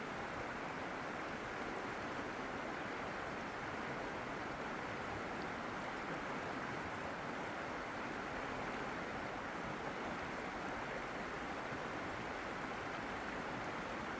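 Steady rushing water: an even, unbroken hiss without surges or pauses.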